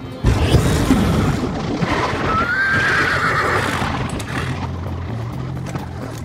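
A horse neighs over a loud rushing roar of flames that starts suddenly just after the start, the whinny gliding up and then falling about two seconds in; a steady low hum carries on toward the end.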